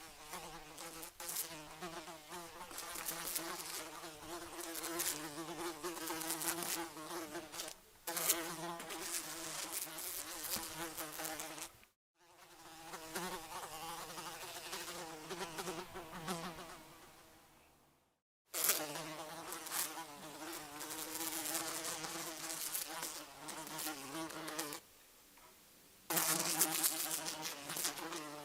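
Housefly buzzing in flight, a droning hum that swells and fades as it flies past, broken by brief silences where one recording gives way to the next.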